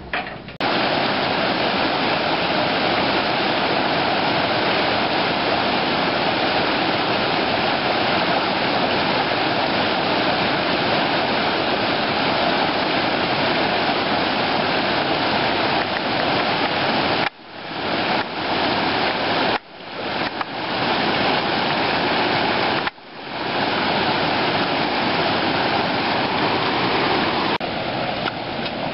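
Creek water rushing steadily over a causeway ford, broken three times by sudden drops that fade back up, and quieter near the end.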